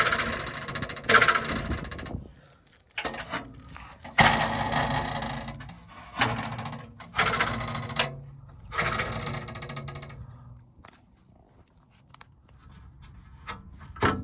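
Thin metal plate rattling and ringing in about seven separate jangles, each starting sharply and fading over a second or two, then a few small clicks near the end. This is the rattle the owner first blamed on the main muffler heat shield.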